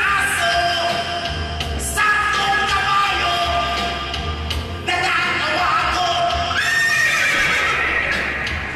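A song with a female singer's high, wavering, horse-like whinnying vocals over band music with a pulsing bass.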